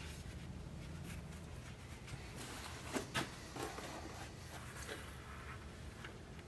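Light handling on a workbench as thin wooden scabbard-core strips and leather are shifted and laid down, with two quick knocks close together about three seconds in.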